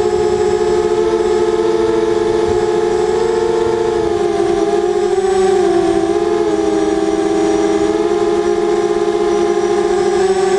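FPV racing quadcopter's four brushless motors (T-Motor 2000Kv, 5045 bullnose props) heard from the onboard camera: a loud, steady, multi-toned buzzing whine. Its pitch wavers with the throttle and dips slightly about four to five seconds in.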